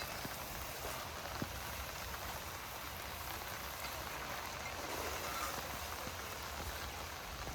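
Steady light rain pattering, with one faint knock about a second and a half in.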